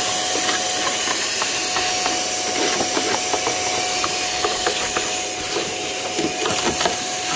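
Vacuum cleaner running steadily with a constant whine, its hose sucking up rust flakes and dirt that tick and rattle in the nozzle with scattered small clicks.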